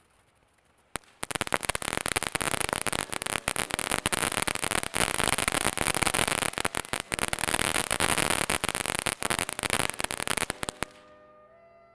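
Freedom Star fountain firework spraying sparks, crackling with a dense run of rapid pops over a steady hiss. It starts with a single pop about a second in and dies away about a second before the end.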